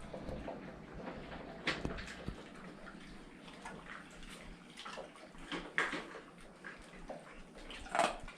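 A Rottweiler eating wet food (tripe and bone broth) from its dish: irregular wet smacking and lapping, with a louder cluster near the end.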